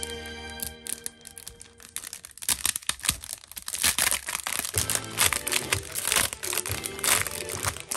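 Thin clear plastic packaging crinkling and rustling as hands work it off a plastic clear file, in dense irregular crackles that grow louder from about four seconds in. Background music fades in the first second and returns faintly underneath later.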